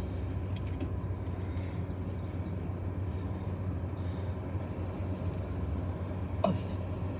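Steady low drone of a vehicle running, with a single short click about six and a half seconds in.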